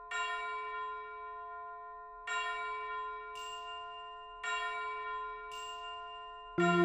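Background music: a bell-like chime note struck three times about two seconds apart, each ringing and fading, with a high shimmering accent between strikes. Fuller music with many notes comes in near the end.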